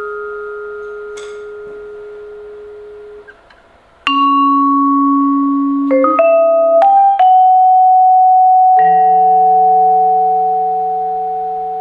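Solo vibraphone struck with mallets: single notes and a low two-note chord that ring on for seconds after each stroke. A held note stops a little over three seconds in, and after a short hush new notes are struck one after another.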